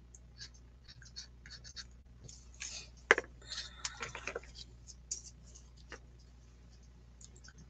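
Soft pastel being rubbed and blended on paper: quick, scratchy strokes in short runs, busiest in the middle, with one sharp tap about three seconds in.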